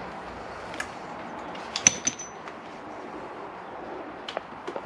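Light clicks and knocks of hands working a clutch hose out through a motorcycle's frame, with one sharp metallic clink about two seconds in that rings briefly.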